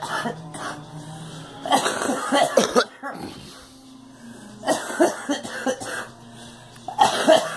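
A girl coughing in three short fits of several coughs each, about two, five and seven seconds in.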